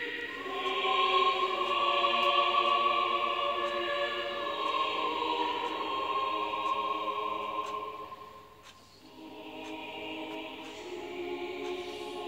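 A choir singing slow, long-held chords, fading briefly about eight seconds in before a new phrase begins.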